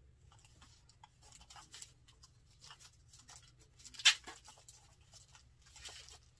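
Packaging rustling and crinkling as it is handled in the hands: a run of short scratchy rustles, with one sharp crackle about four seconds in.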